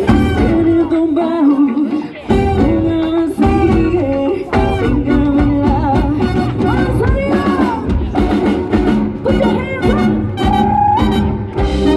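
Live Latin band music: a full band with a steady beat and pitched melody lines.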